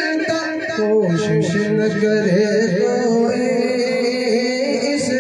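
A man singing a naat, an Urdu devotional poem, into a microphone, in long wavering held notes.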